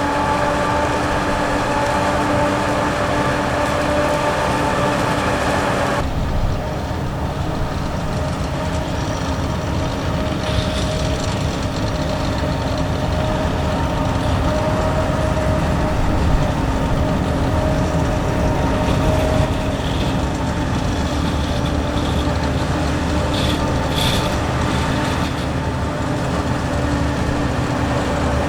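Heavy diesel farm machinery at work on a maize silage harvest, running steadily with a constant engine hum. About six seconds in, the sound changes abruptly to another machine's steady drone, with a few short clatters later on.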